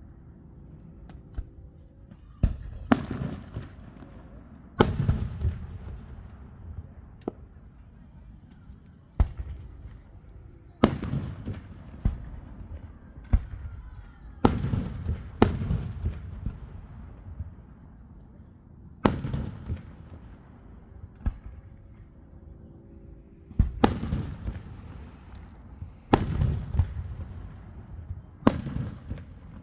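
Fireworks shells bursting: an irregular series of sharp bangs, one to three seconds apart and some in quick pairs, each followed by a rumbling echo that fades over a second or two.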